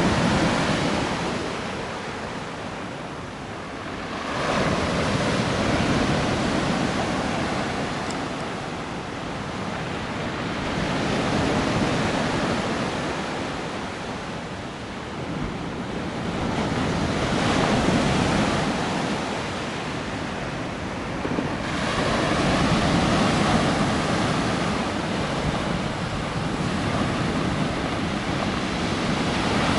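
Black Sea surf: waves breaking and washing on the shore, swelling and fading in a slow rhythm of about one wave every six seconds.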